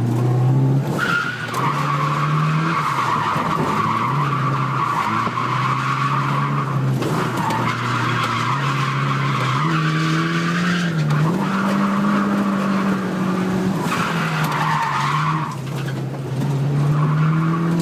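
Nissan 200SX S13 drifting, its turbocharged CA18DET four-cylinder held at high revs while the tyres squeal through long slides. The squeal breaks off briefly a few times between slides.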